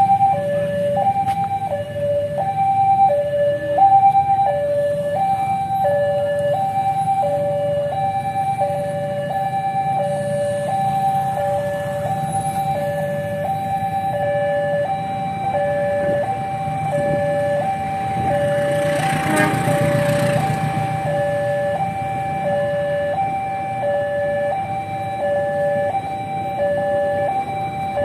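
Railway level-crossing warning alarm sounding, an electronic hi-lo signal alternating a higher and a lower tone about every half second, the sign that a train is approaching and the barriers are down. Underneath is a low hum of waiting road traffic, with a brief louder rush about two-thirds of the way in.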